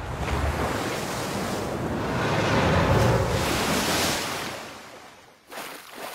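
Cartoon rushing sound effect, like a big surge of water or a gust of wind. It builds to its loudest about three seconds in and dies away, with a short second rush near the end.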